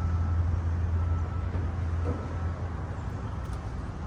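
Low steady vehicle rumble that eases off about two and a half seconds in, with a faint reversing alarm giving a short beep about once a second.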